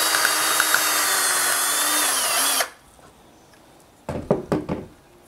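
Cordless drill running steadily as its bit bores through the bowl of a metal spoon. The pitch dips slightly just before it cuts off suddenly about two and a half seconds in, followed a second or so later by a few light knocks.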